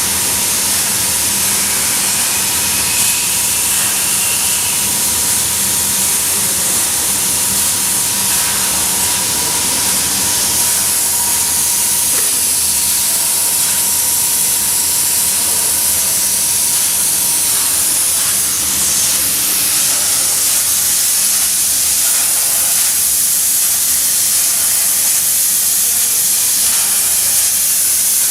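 Metal Master SQUALL CNC plasma cutter's torch cutting sheet metal: a loud, steady hiss of the plasma arc and its air stream. A faint, thin steady tone underneath fades out about two-thirds of the way through.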